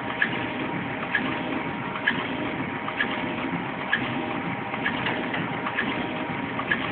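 Tissue machine running steadily with a hum and a sharp click repeating about once a second, one click for each cycle of the mechanism.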